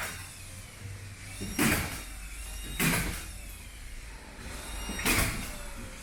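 Three short, sharp clunks of work noise, spaced a second or two apart, over a faint low hum.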